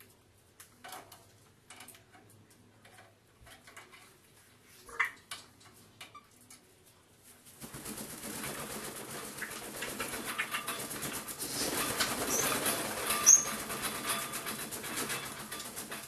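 African grey parrot beating its wings hard while gripping its perch, a dense flutter that starts about halfway through and runs on, with two short high squeaks during it. Before that, faint scattered clicks while it preens, and one short chirp.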